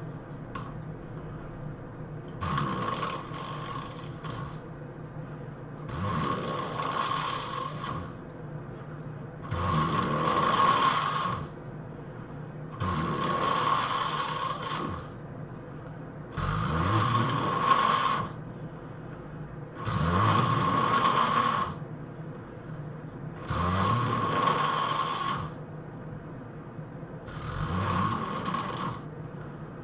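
A person snoring in steady rhythm: about eight snores, one every three and a half seconds, each lasting a second or two.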